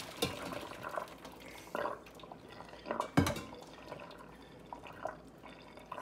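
Water dripping and trickling from freshly boiled nopales draining in a plastic colander over a stainless steel sink, with a few short knocks and splashes, the loudest about three seconds in.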